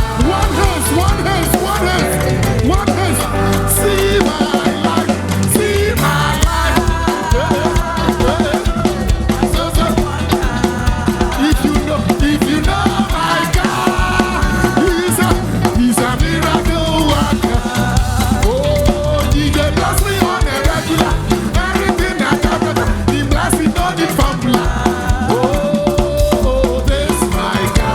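Live gospel praise music from a band, with a steady drum beat and hand percussion under sustained melodic lines.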